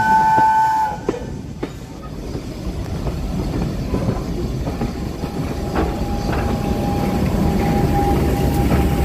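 A train sounds a steady two-note chord that cuts off about a second in; then a railway carriage's wheels rumble and click over the rail joints while class 50 diesel-electric locomotive 50017 Royal Oak, with its English Electric V16 engine, passes close alongside, the noise growing louder and a steady whine joining about halfway.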